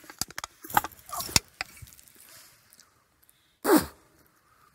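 Rustling and crunching in dry fallen leaves, with a few sharp snaps, as a man moves through the forest floor. Near the end comes one short vocal sound falling in pitch, like a sigh or grunt.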